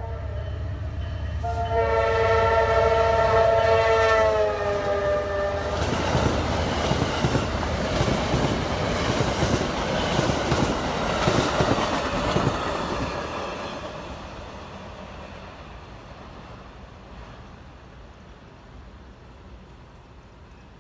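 Amtrak Palmetto passenger train passing at speed. The locomotive's multi-tone horn sounds for about four seconds, its chord sliding down in pitch as it goes by. Then the wheels clatter over the rails as the cars pass, and the sound fades away over the last several seconds.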